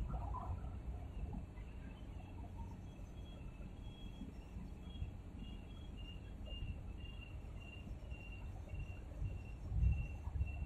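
Low outdoor rumble of wind and distant harbour noise. From a few seconds in, a faint high-pitched chirp repeats about twice a second.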